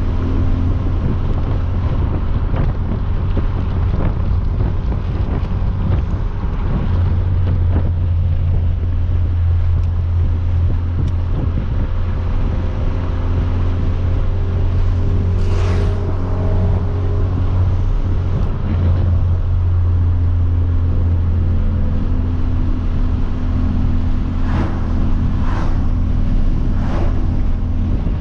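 Hyundai Veloster Turbo's turbocharged four-cylinder with a catless downpipe, cruising: a steady low engine and exhaust drone with wind and road noise through the open windows. A few short sharp sounds come through midway and several more near the end.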